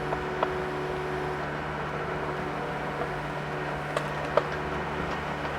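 Mini excavator's diesel engine running at a steady speed, with a few small knocks about half a second in and near the end.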